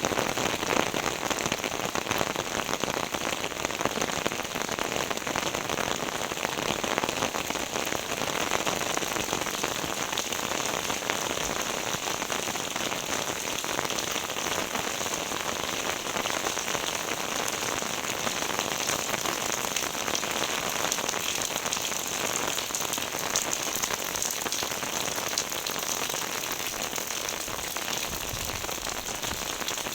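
Heavy rain falling steadily on surfaces, a dense, even patter of drops.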